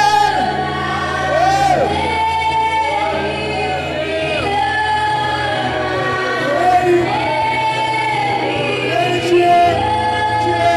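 Worship singing in a church: several voices sing a slow worship song over sustained held accompaniment notes that change chord a few times.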